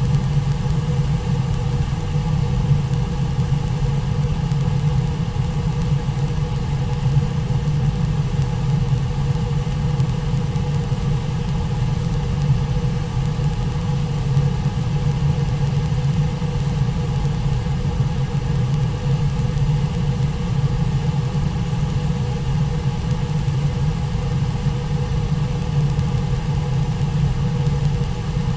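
Brooks River water rushing over Brooks Falls and the rapids below it: a steady low rumble.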